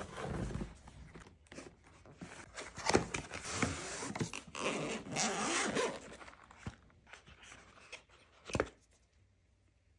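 Cardboard box and paper wrapping being handled, sliding and rustling, then the zipper of a fabric-covered hard carrying case being pulled open. A sharp knock comes about two-thirds of a second before the sound dies down, near the end.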